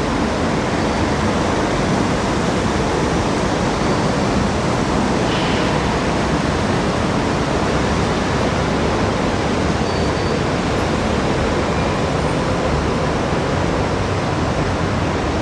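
A steady, loud rushing noise that stays even throughout, with no distinct events.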